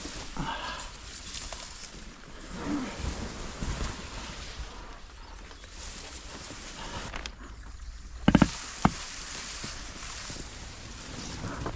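A small boat being paddled down a creek: paddle strokes and water swishing along the hull, with a quick cluster of sharp knocks a little past the middle, the loudest sound, followed by one more knock.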